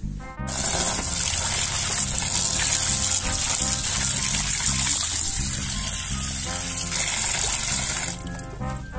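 Tap water gushing and splashing into a plastic basin half full of water while a hand washes greens in it. It starts about half a second in and cuts off about a second before the end. Background music plays underneath.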